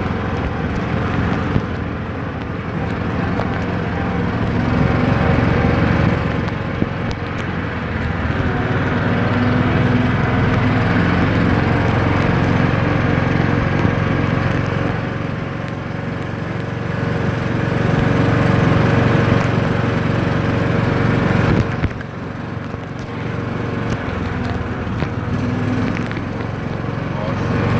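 Side-by-side utility vehicle's engine running as it drives along a sandy dirt trail, its note swelling and easing in waves with the throttle, with a brief drop in level about three-quarters of the way through.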